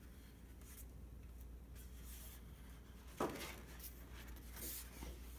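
Large sheets of original comic-art paper rustling and sliding as they are handled and turned, faint, with one sharper brush of paper about three seconds in. A low steady hum sits underneath.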